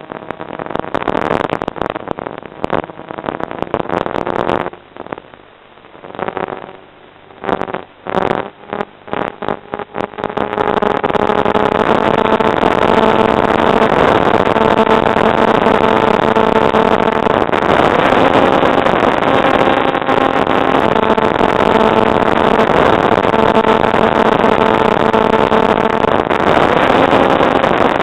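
FPV model aircraft's motor and propeller, throttled in short on-off bursts for the first ten seconds, then held at a steady high whine with a slightly wavering pitch.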